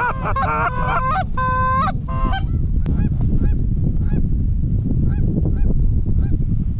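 Canada goose honking: a loud, dense run of honks for about the first two and a half seconds, then fainter, scattered honks. A steady low wind rumble on the microphone lies under it all.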